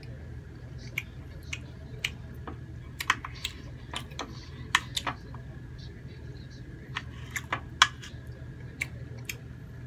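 Knife and fork clinking and scraping against a ceramic plate while cutting grilled squid: irregular sharp clicks, about two a second, over a steady low hum.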